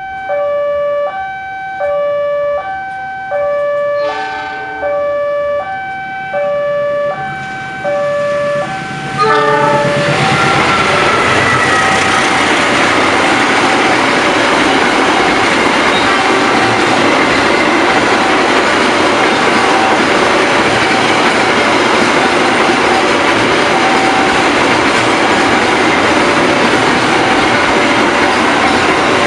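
Railway level-crossing warning siren sounding an alternating two-tone electronic alarm, switching between a lower and a higher tone about once a second. About nine seconds in, a train passing over the crossing sets in with a loud, steady rumble of wheels and cars, and the siren carries on faintly beneath it.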